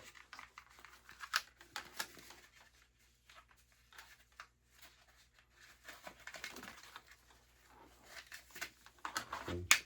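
Handling noise as the five-point harness straps are worked off a goalie mask's plastic backplate: a few sharp clicks from the clips and plastic, with soft rustling of the straps.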